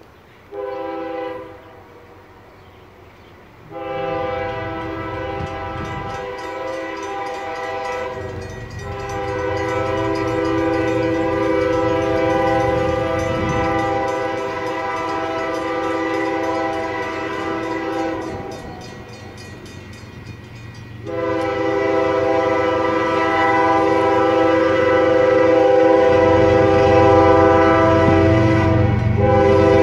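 Multi-chime diesel locomotive air horn blowing repeatedly as the train approaches. A brief toot about a second in is followed by long blasts of several seconds each, with a short break about halfway through. A low rumble from the six-locomotive lashup's diesel engines grows louder beneath it toward the end.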